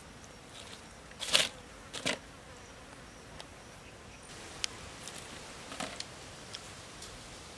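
Knife cutting through a roast duck on a woven basket: two short crunching cuts, a little after one second and at about two seconds in, then a few small clicks as the meat is handled.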